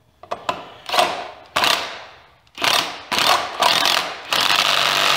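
12-volt Bosch cordless driver running a Tapcon masonry screw through an aluminium threshold into a concrete slab. It goes in about five short bursts, the last and longest near the end as the screw runs down.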